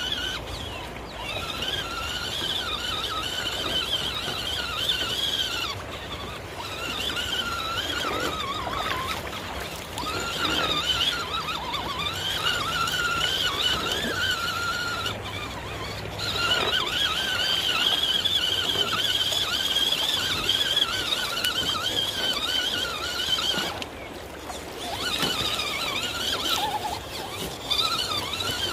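Redcat Gen7 Pro RC crawler's electric motor and gears whining, the pitch wavering up and down as the throttle changes, in long stretches broken by a few brief pauses.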